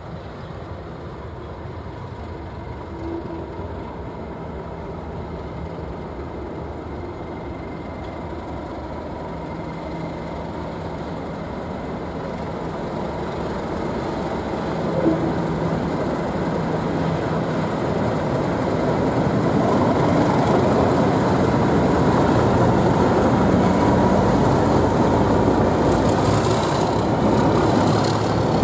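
Class 37 diesel locomotive's English Electric V12 engine running as the train approaches and draws alongside, growing steadily louder for about the first 20 seconds and then holding. There is a single short knock about halfway through.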